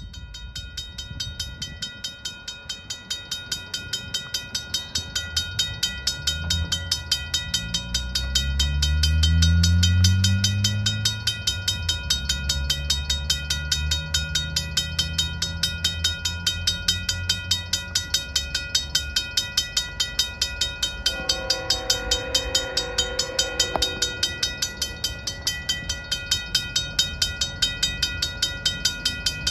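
A Griswold/RACO mechanical crossing bell strikes rapidly and evenly throughout. Under it, the lead GE ET44AC diesel locomotives run past, their engine sound rising and peaking around ten seconds in. The freight cars then rumble by, and a higher steady tone joins about two-thirds of the way through.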